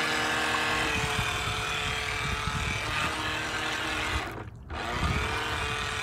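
Small electric motor of a toy RC boat whining steadily as it drives through the water, with the water sloshing low beneath it. The motor cuts out for a moment about four and a half seconds in, then spins back up with a short rising whine.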